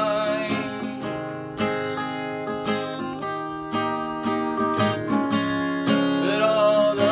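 Acoustic guitar being strummed, chords ringing in a steady rhythm.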